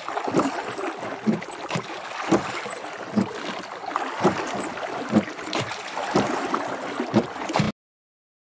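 Wooden rowboat being rowed with a pair of oars: a rhythmic stroke from the oars and oarlocks about once a second over the wash of water. The sound cuts off suddenly near the end.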